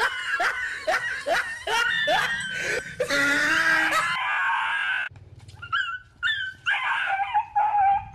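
A dog yelping in a rapid run of short cries that fall in pitch, two to three a second, then one longer cry. From about five seconds in come softer, higher yips and a whine.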